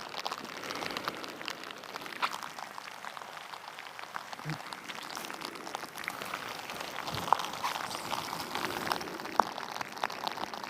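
Rain falling, with many individual drops ticking and pattering close to the microphone over a steady hiss.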